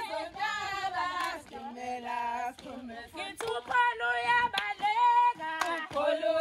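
A group of women singing a traditional Zulu song together in chorus, with sharp hand claps.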